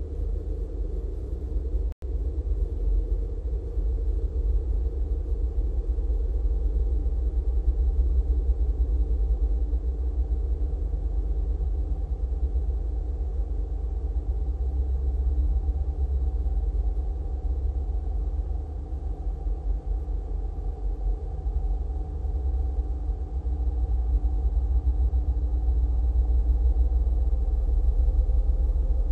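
Steady, low rumbling drone of an electronic ambient soundtrack, unchanging in character, with a momentary dropout about two seconds in.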